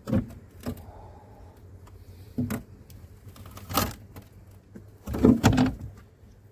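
Handling of a plastic 240-litre compost bin: a series of knocks and thumps, the loudest cluster near the end.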